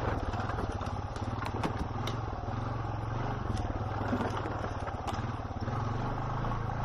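Quad (ATV) engine running at a steady low speed, with a few sharp clicks.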